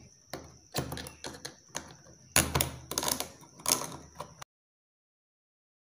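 Plastic bulb holder being handled and fitted by hand: a run of sharp plastic clicks and knocks, loudest about two and a half seconds in. The sound cuts off suddenly after about four and a half seconds, leaving dead silence.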